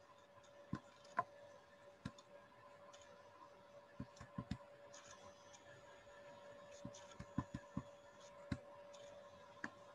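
Faint, scattered clicks of a computer mouse and its scroll wheel, some single and some in quick runs of three or four, over a faint steady electrical hum.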